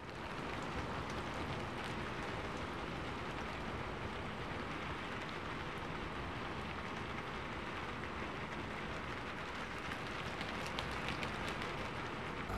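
Steady rain falling, with scattered drops ticking.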